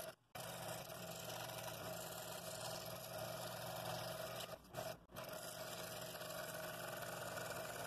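Scroll saw running steadily, its fine blade cutting out the openings between the spokes of a small wooden wheel. The sound drops out briefly twice, near the start and about five seconds in.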